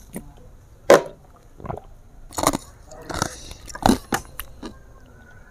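Close-miked eating mouth sounds: a string of about seven short, sharp smacks and bites.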